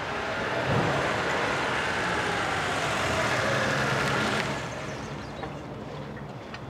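A vehicle passing by, its sound falling in pitch as it goes, then dropping away about four and a half seconds in to a quieter steady noise.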